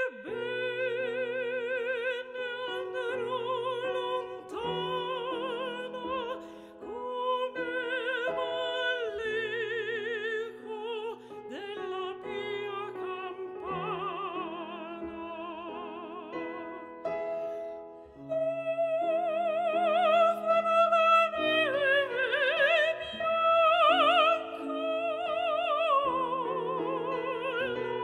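Classical operatic singing with wide vibrato over held accompaniment chords, used as background music.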